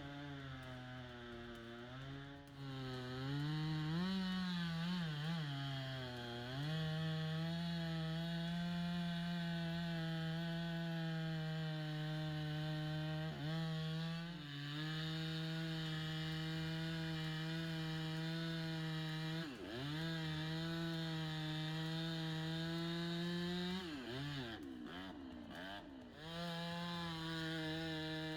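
Two-stroke chainsaw running at high speed with a steady, high-pitched engine note. The revs drop and pick up again briefly a few times, near the start, around the middle and a few seconds before the end.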